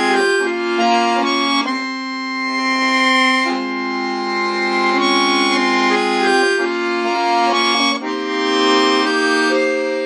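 Solo accordion playing held chords under a melody, the notes changing every second or two.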